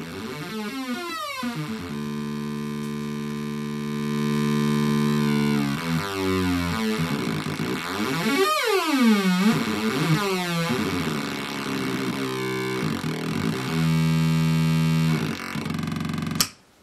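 Synthrotek Atari Punk Console, a two-555-timer DIY noise synthesizer, putting out pitched square-wave tones that swoop up and down in pitch as its knobs are turned, with steady held notes between the sweeps. Near the end it cuts off suddenly with a click.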